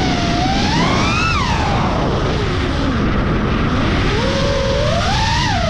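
FPV quadcopter's brushless motors whining, the pitch following the throttle: it climbs to a peak about a second in, drops low through the middle as the throttle is cut, then climbs again near the end. A steady rush of wind noise runs underneath.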